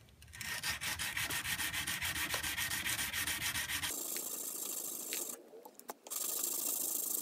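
Oiled 110-grit sandpaper rubbed by hand across the clip of a steel knife blade, in quick, even back-and-forth strokes. About four seconds in, the sound turns thinner and hissier, with a short break near the end.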